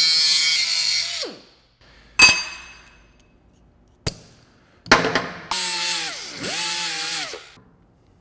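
Small 3-inch grinder with a cut-off wheel cutting through thin steel square tubing. Its high whine runs for about a second and winds down, a sharp metal clink rings out about two seconds in, then the grinder runs again for about two and a half seconds, dipping in pitch once, before spinning down.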